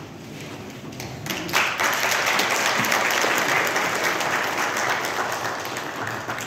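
Audience applauding. The clapping starts suddenly about one and a half seconds in, holds steady, then tapers off near the end.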